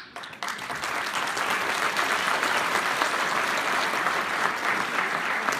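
Audience applauding, breaking out suddenly just under half a second in and then holding steady.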